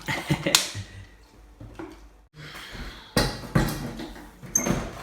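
Several sharp knocks and clatters of dishes and tableware being handled and set down, with a cluster of them in the last two seconds.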